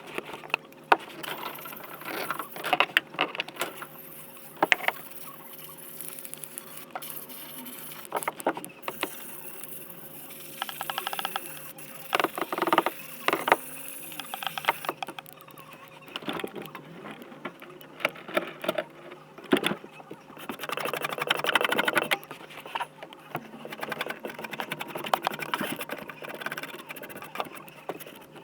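Irregular clicks, knocks and scraping of hands and tools handling metal parts, with a faint steady hum underneath.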